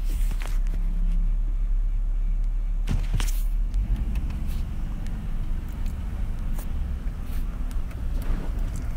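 Vehicle engine and tyres rumbling low and steady inside the cab, driving slowly over a rutted dirt road. A couple of sharp knocks come through, about a quarter second in and again around three seconds in, as it jolts over the ruts.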